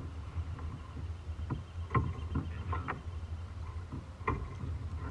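A handful of light knocks and taps from handling in a plastic kayak, over a steady low rumble of the boat on the water.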